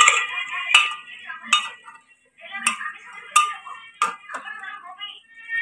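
A steel spoon stirring thick chicken masala in an aluminium pressure cooker pot: metal scraping against the pot, with about five sharp clinks where the spoon knocks the rim and sides.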